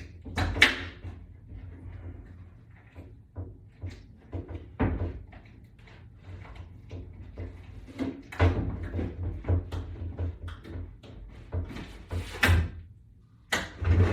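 Irregular knocks, clicks and scrapes of a wall-mount board and toggle bolt being handled and fitted against a wall, with several louder knocks among them.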